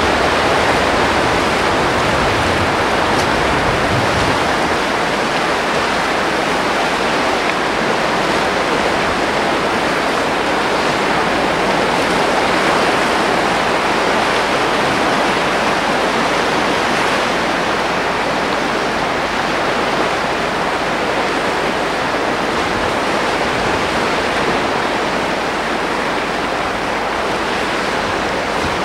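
Sea surf, a continuous even rush of breaking waves with no single crash standing out.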